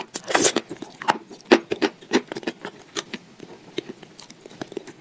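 Close-up wet mouth sounds of eating thick wet chalk paste: a run of small sticky smacks and clicks, with a short louder rustle about half a second in.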